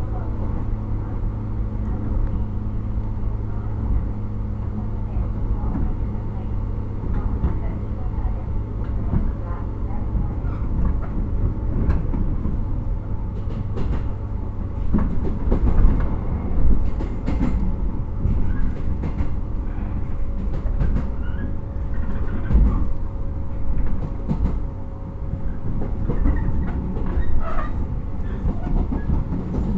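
Interior running sound of a JR 115-series electric multiple unit, heard in a motor car with MT54 traction motors. A steady low rumble and hum runs throughout, with wheels clacking and knocking over rail joints more often from about halfway through.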